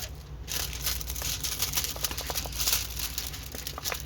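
Thin, flimsy plastic film on a diamond painting canvas crinkling as it is handled: a dense, uneven run of crackles.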